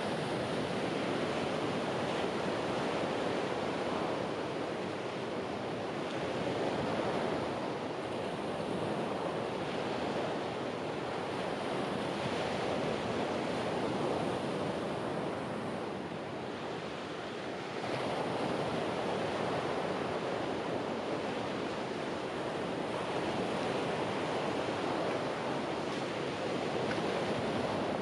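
Ocean surf: waves breaking and washing in, swelling and easing every few seconds, with a short lull about two-thirds of the way through before the next wave comes in.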